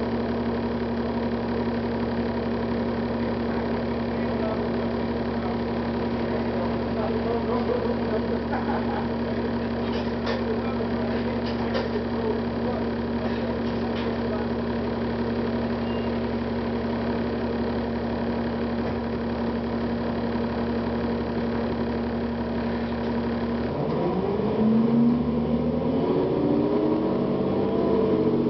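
Cummins ISL diesel engine of a Gillig Advantage transit bus idling steadily, with a few faint clicks partway through. Near the end the engine revs up and its pitch rises as the bus pulls away.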